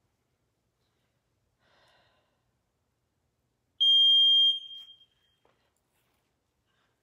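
Electronic gym interval timer beeping once: a single loud, steady high-pitched tone just under a second long, marking the change from the rest or hold period to the next work interval.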